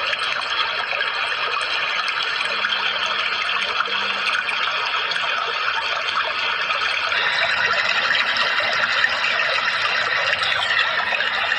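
Steady rushing water, like a stream or small waterfall, running without a break.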